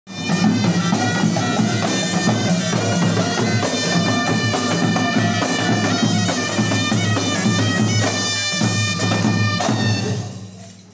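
Moroccan ghaita shawms playing a shrill, reedy melody over tbal drums beaten in a steady rhythm. The music fades out near the end.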